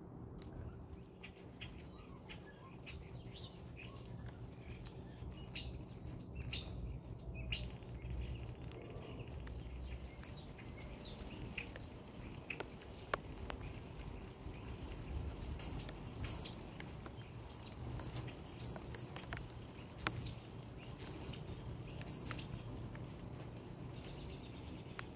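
Small birds chirping in short, high, repeated calls, more often and louder in the second half, over a low steady outdoor background with scattered small clicks.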